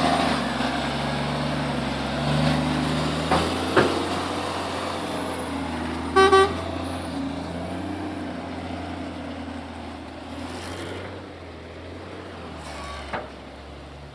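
Volvo A35E articulated dump truck's diesel engine running on the move, fading gradually. About six seconds in, a short horn blast.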